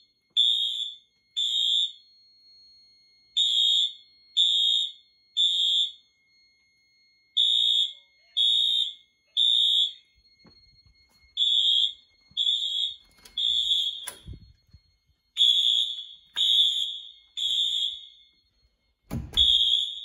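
Fire alarm sounders going off in the temporal-three evacuation pattern: three high-pitched beeps about a second apart, then a pause, repeating about five times. This is the system in alarm after the smoke detector was tripped.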